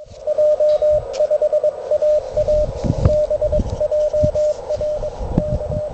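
Morse code (CW) received on a portable ham radio transceiver: a single steady tone keyed on and off in dots and dashes over receiver hiss. Irregular low thumps and rumbles run underneath.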